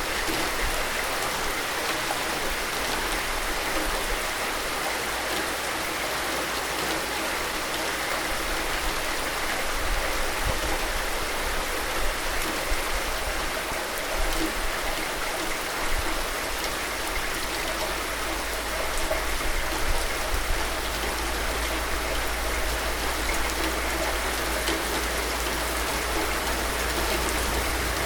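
Steady rain falling, a dense even hiss of drops with a few slightly louder patters and a steady low rumble underneath.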